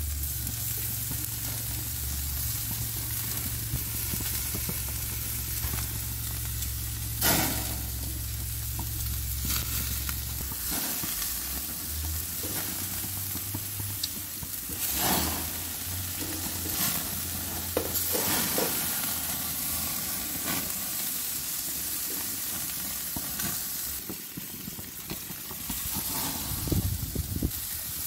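Marinated strip loin and blade steaks sizzling on a barbecue grill, a steady hiss broken by a few brief knocks. A low hum sits under the sizzle and fades out about ten seconds in.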